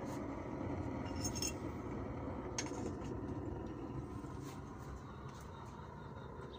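Gravity-fed pellet burner of a Viadrus boiler running: a steady low rushing noise from the burning pellets and the air drawn through the burner. Two light metallic clinks sound over it, one just over a second in and one about two and a half seconds in.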